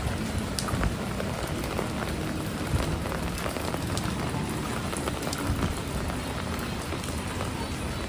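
Heavy typhoon rain falling steadily and splashing on surfaces, with scattered sharper drop hits.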